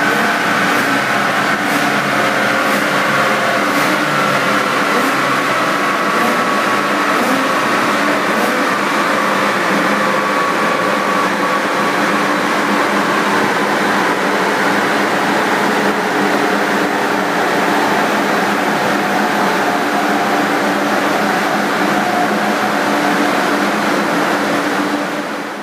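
Porsche Boxster S on a chassis dynamometer coasting down with the clutch held in after a full-throttle pull: a steady whine and rumble of the tyres and dyno rollers spinning down, one tone slowly falling in pitch. It fades out at the very end.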